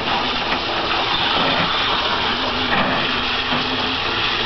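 Water from a garden hose pouring onto a child's head and splashing into a shallow plastic kiddie pool: a steady, unbroken rush.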